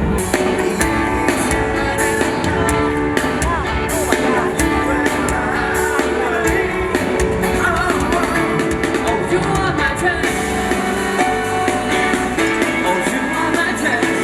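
Live band playing a pop-rock song: a singer over electric guitar, bass and drums, with the drum hits thinning out about ten seconds in.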